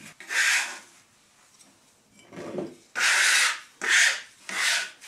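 Leftover flour being scraped across a wooden butcher-block tabletop and gathered into a glass bowl: one scraping stroke near the start, then three quick strokes in the second half.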